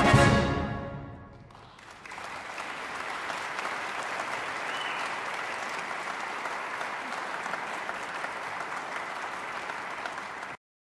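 A military concert band ends a march on a final chord that dies away over about a second and a half. Audience applause follows, steady, and cuts off abruptly near the end.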